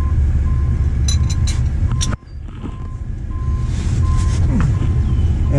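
A few light metallic clinks as a main bearing cap is fitted to a Detroit Diesel Series 60 crankshaft, over a steady low rumble and a faint beep repeating about once a second. A little past two seconds in, the rumble cuts out suddenly and slowly comes back.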